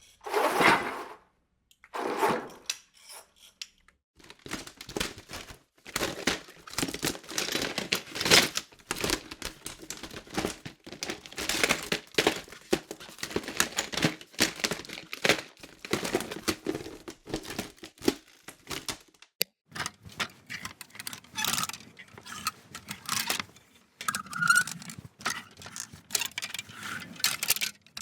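A string of household-object handling sounds in separate takes: two short clatters, then a long stretch of irregular rattling and clicking, then further knocks and scrapes after abrupt changes about two-thirds of the way in.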